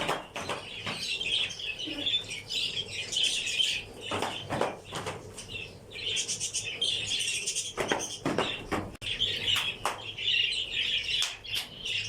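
A flock of small parrots chirping and chattering continuously, with a few short bursts of wing flapping about four and eight seconds in.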